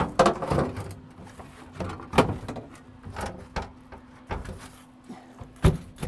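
A replacement sheet-metal floor pan knocking and clunking as it is worked into place in a car's floor: about six sharp knocks, the loudest near the end, with a faint steady hum under them from about a second in.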